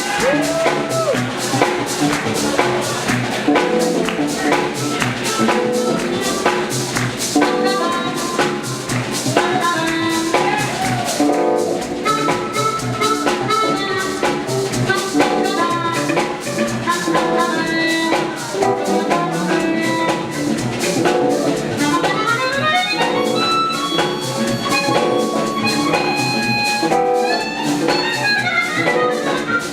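Jazz-fusion band playing live: a horn section over drum kit and keyboards, with quick rising and falling runs in the last third.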